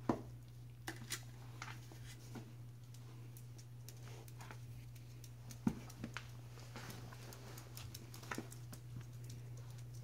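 Scattered light clicks and taps from a puppy and a white-bellied caique moving about and playing on the floor, with one sharper knock about halfway through, over a faint steady low hum.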